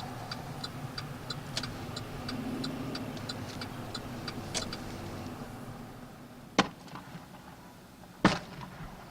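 Vehicle turn-signal clicking, about three sharp ticks a second over low engine and road rumble, stopping about five seconds in as the rumble fades. Then two loud sharp knocks, about six and a half and eight seconds in.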